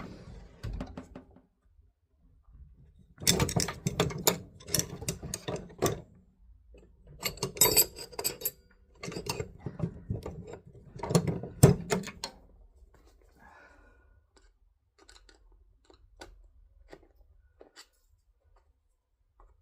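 Metal hand tools clattering and clinking in four bunched bursts, the sound of rummaging for a flathead screwdriver, followed by a few faint ticks.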